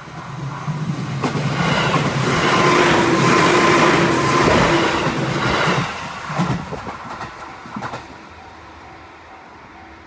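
JR West 205 series electric commuter train passing close at a level crossing. The running noise and wheel clatter swell over the first couple of seconds, stay loud until about six seconds in, then fade, with a couple of separate wheel knocks over rail joints as the last cars go by. A level crossing warning bell rings in even strokes underneath, heard again once the train has faded.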